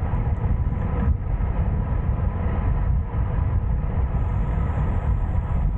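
Wind rushing over the microphone of a bike descending a mountain pass at speed, a steady deep rumble with a fainter hiss above it.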